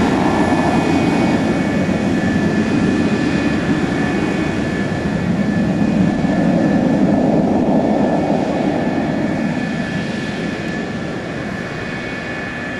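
Lockheed F-104 Starfighter's General Electric J79 turbojet running at taxi power: a steady jet rumble with a high, even whine above it. The sound swells slightly a little past halfway, then fades gradually over the last few seconds.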